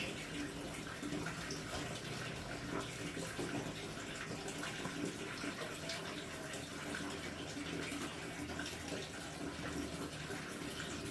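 Steady rushing noise of running water, even throughout.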